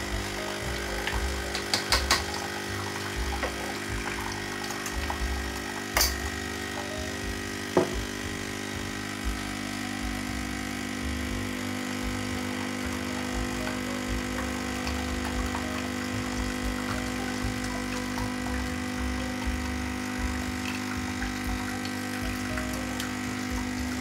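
De'Longhi Scultura ECZ351BK espresso machine's vibratory pump running steadily, pushing water through the coffee, with a few short clicks in the first eight seconds. It cuts off suddenly at the end as the machine finishes its dose.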